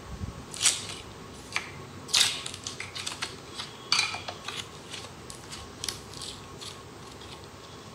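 Thin clear plastic mold crackling and clicking as it is squeezed and peeled away from slime: a run of irregular sharp clicks, the loudest about two and four seconds in.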